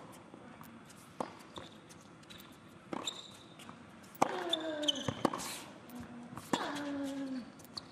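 Tennis rally on a hard court: sharp racket strikes and ball bounces every second or so, with a player grunting on a shot about four seconds in and again about six and a half seconds in, each grunt falling in pitch.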